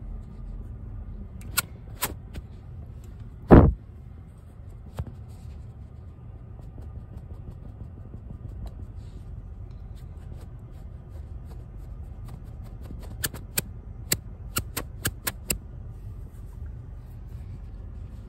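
Makeup sponge dabbed and brushed against the phone close to its microphone, over a steady low hum: scattered sharp taps, one loud bump about three and a half seconds in, and a quick run of taps near the end.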